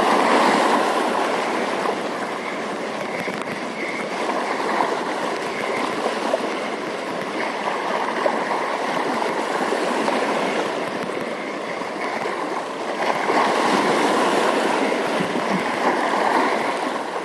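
Steady rush of flowing water, swelling a little about thirteen seconds in.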